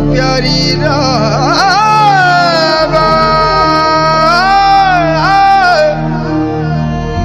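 Background music: a song whose melody winds through quick ornamented turns, then settles into long held notes over steady accompaniment.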